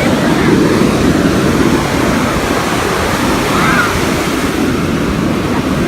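Ocean surf washing onto the beach, a steady loud rush, with wind buffeting the microphone.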